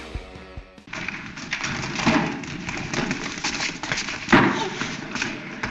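Soundtrack of an old black-and-white film: thumps and knocks over a steady noisy background, the loudest knock about four seconds in. Rock music fades out about a second in.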